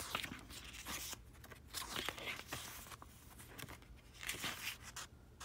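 Paper pages of a small printed booklet being turned and flicked through by hand: a string of soft, irregular paper rustles and flicks.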